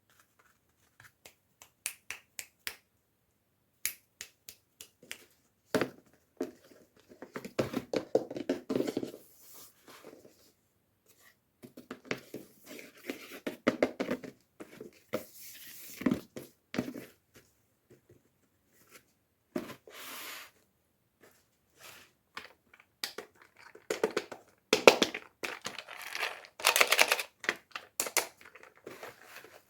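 Toy packaging being handled and opened: sharp clicks and taps, then crinkling and tearing of wrapping in irregular bursts, busiest near the end.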